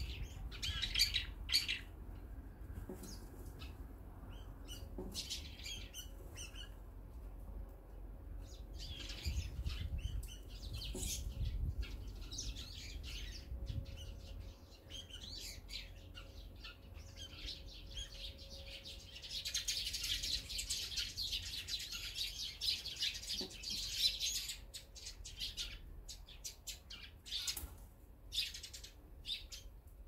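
Eurasian tree sparrows chirping: scattered chirps, with a dense burst of chattering about two-thirds of the way through. A low rumble runs under the first half.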